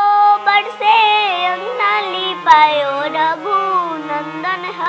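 A young girl singing a Bhojpuri wedding song (vivah geet) over a low steady drone, with one sharp click about halfway through.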